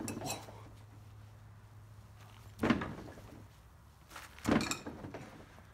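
Heavy stainless-steel throwing knives striking a ballistics-gelatin target backed by plywood: two sharp impacts about two seconds apart.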